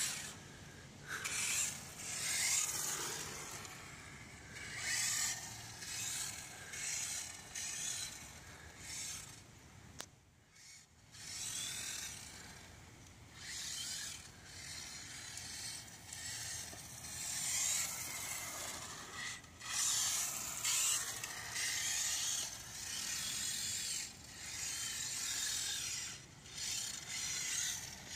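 Electric radio-controlled cars driven on wet asphalt: a high motor-and-gear whine that swells and falls away with each burst of throttle, over a hiss of water spray from the tyres.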